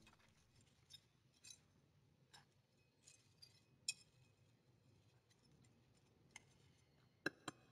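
Faint, scattered scrapes and clicks of a small metal hand trowel working worm castings into the soil of a plastic plant pot, with two sharper clicks close together near the end.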